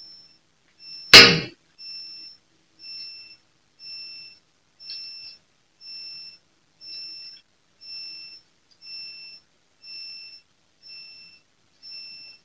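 High-pitched electronic beep repeating about once a second, each beep about half a second long, with one loud knock about a second in.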